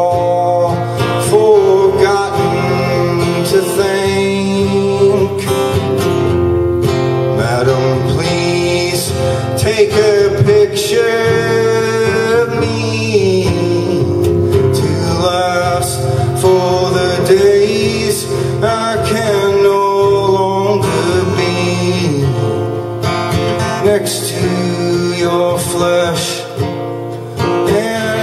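Live solo acoustic guitar playing, with a man singing along at times.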